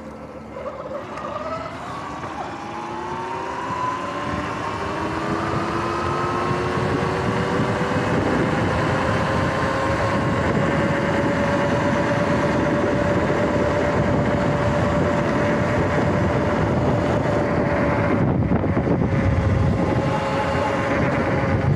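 Electric dirt bike's motor whining, rising in pitch as it accelerates from a slow roll, then holding a steady note at cruising speed. Wind and tyre noise build with the speed; the whine dips slightly when the throttle eases off near the end.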